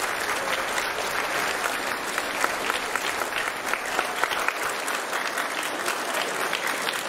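Audience applauding, a steady round of clapping.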